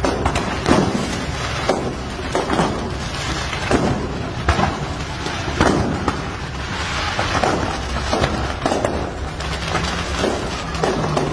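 The stock of a burning fireworks shop going off uncontrolled, set off by the fire: irregular cracks and bangs of rockets and aerial shells, sometimes several in a second.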